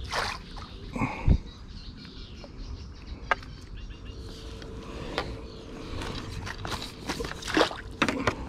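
Water splashing and sloshing as a hooked tench is drawn in and scooped into a landing net, with a few knocks from handling the rod and net pole and a sharp thump about a second in.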